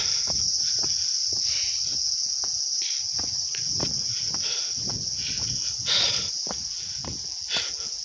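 Steady, high-pitched drone of insects in the forest, with irregular footsteps on a dirt path and log steps beneath it.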